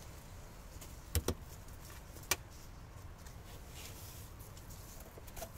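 Sharp metallic clicks as a tie-down strap's metal buckle is unfastened and the strap is pulled off a sheet-metal beehive roof: two quick clicks about a second in, another a second later, and a faint one near the end.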